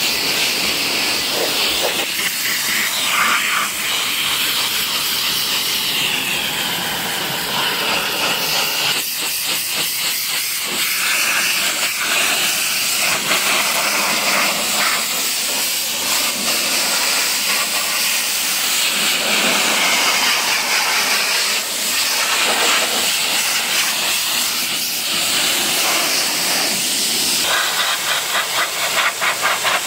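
High-pressure washer jet spraying water onto a car's bodywork and wheel: a steady, loud hiss of spray. A fast regular pulsing joins in near the end.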